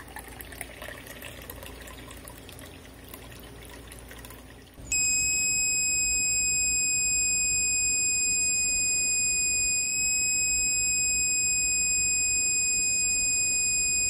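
Water pouring from a teapot into a teacup. About five seconds in, a homemade water overflow alarm goes off with a loud, steady, high-pitched buzzer tone, set off as the overflowing water reaches its sensor.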